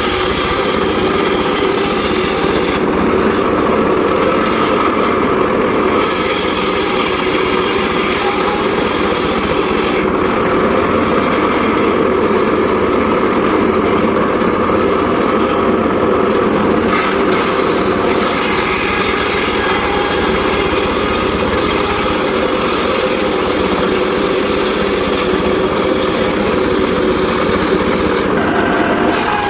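Homemade circular saw rig running steadily while sawing sengon laut timber. The blade and its drive make a continuous loud mechanical drone, and the higher sound thins out for a few seconds about three seconds in and again from about ten to eighteen seconds.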